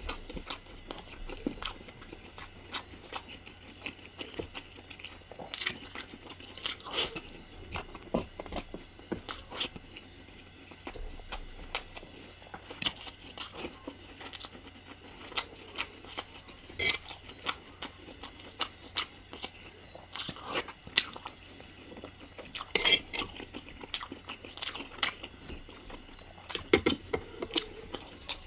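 Close-miked chewing and biting of spicy chicken curry, with irregular wet mouth clicks and crunches, a few louder bites among them.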